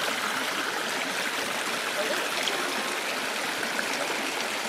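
A shallow mountain creek rushing and trickling over rocks: a steady, even sound of running water.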